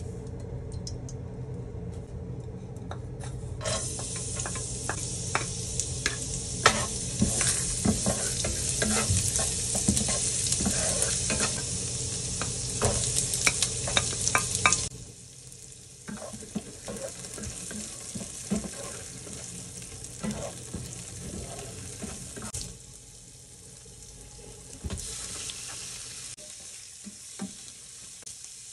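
Sliced onion and garlic, then chicken pieces, frying in oil in a non-stick pan, with a wooden spatula scraping and tapping against the pan as they are stirred. A low hum comes first, and the sizzle starts about four seconds in. The sizzle drops off abruptly about halfway, then runs quieter, with a louder swell near the end.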